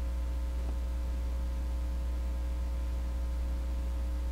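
Steady low electrical hum with a few faint steady tones above it, unchanging throughout; the Play-Doh handling itself makes no clear sound beyond one faint tick.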